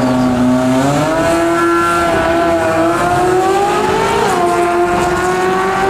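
American V8 fitted with 180-degree headers, run at full throttle down a drag strip; the exhaust note climbs in pitch and drops once, sharply, about four seconds in at an upshift.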